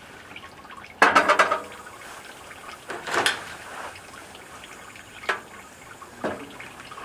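Water trickling with a steady hiss, broken by four sharp knocks and clinks of metal cookware; the first, about a second in, is the loudest and rings briefly.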